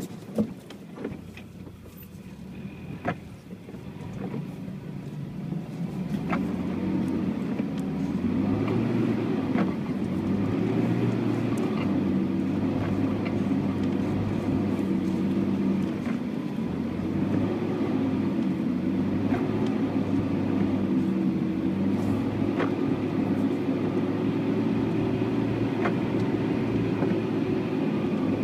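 UAZ Patriot's engine pulling under load off-road. Quiet at first, it builds about six seconds in and then runs steady, with scattered knocks and clicks throughout.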